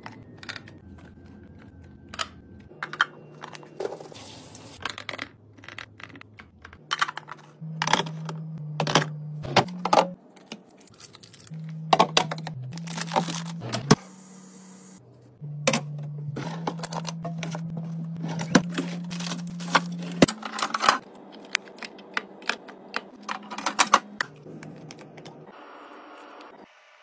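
Fridge restocking: repeated clicks, taps and knocks of containers, lids and items being handled and set down, over soft background music with a stepping bass line.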